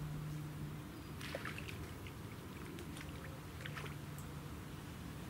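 A hooked carp splashing at the surface close to the bank as it is played in, with water splashing and trickling in two spells, about a second in and again near four seconds. A low hum comes and goes underneath.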